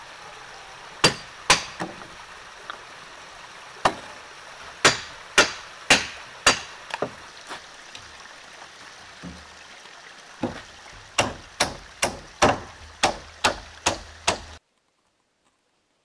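Hammer blows on pine framing lumber, sharp strikes in two runs, the later run about two a second, over the steady rush of a stream. The sound cuts off suddenly shortly before the end.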